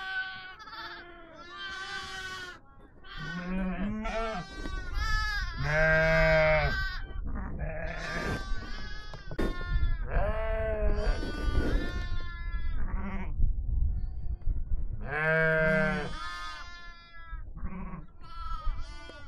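Herd of sheep and goats bleating, with many animals calling over one another, some calls high and some low.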